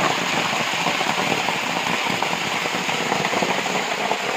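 Water from an overfull above-ground pool gushing out of the open skimmer housing and splashing onto wet gravel: a steady, crackling rush of pouring water.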